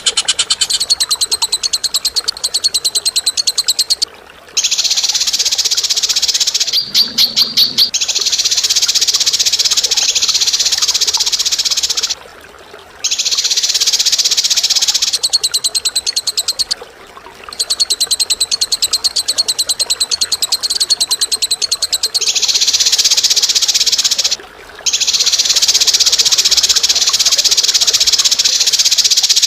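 Bird song: long runs of rapid, high-pitched chattering trill, each lasting several seconds, broken by four short pauses.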